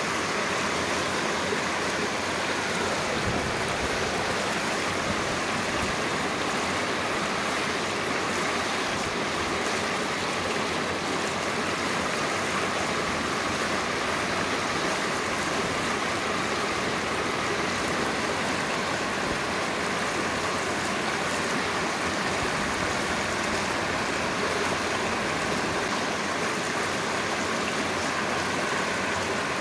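Shallow mountain stream running over rocks, a steady, even rush of water.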